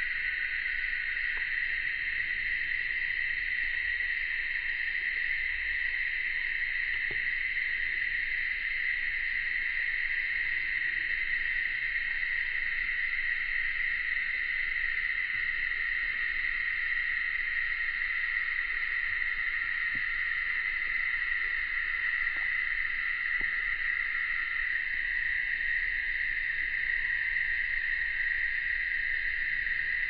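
Steady insect chorus: one continuous high-pitched drone that holds the same pitch and level throughout.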